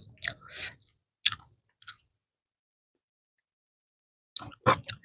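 Close-miked chewing and mouth sounds of someone eating by hand: a few short crunches and smacks in the first two seconds, a silent pause, then a quick cluster of three more near the end.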